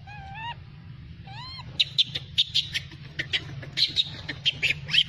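Animal calls: two short, pitched cries with a wavering rise and fall in the first second and a half, then a quick run of sharp, high chirps. A low, steady hum runs underneath.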